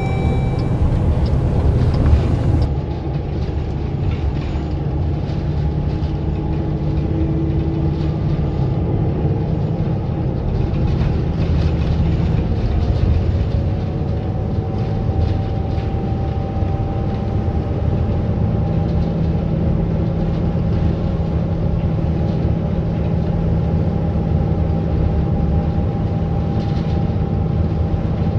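Interior ride noise of a city bus under way: steady engine drone and road rumble. The engine note drops off about halfway through and picks up again a few seconds later, as the bus changes speed.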